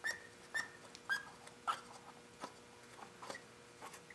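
Primer bulb on a Honda GX31 four-stroke engine pressed repeatedly by thumb: about seven short squeaks, roughly two a second at first and spacing out toward the end. It is pushing fuel through to the carburetor before a choked cold start.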